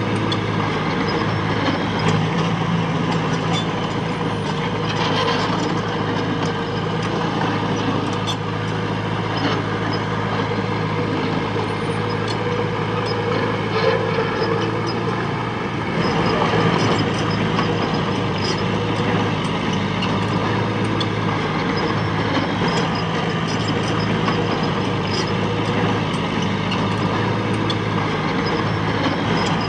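Heavy diesel engine running steadily, with scattered light clicks over it.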